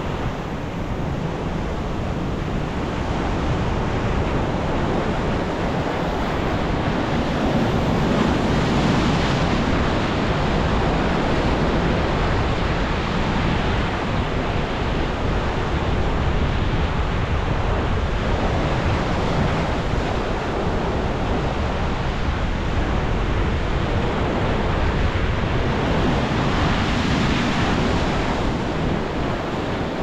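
Pacific Ocean surf washing into a rocky canyon: a steady roar of breaking water that swells twice, about nine seconds in and again near the end, as larger waves crash.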